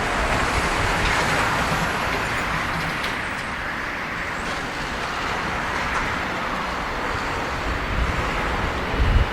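Jet engine noise from a Boeing 777F's GE90 engines: a steady broad rush that swells slightly about a second in, with low rumbling thumps near the end.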